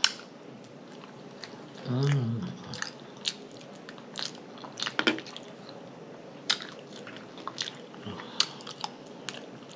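Close-miked eating: chewing, lip smacking and wet mouth clicks, with some crunch. A short hummed vocal sound about two seconds in.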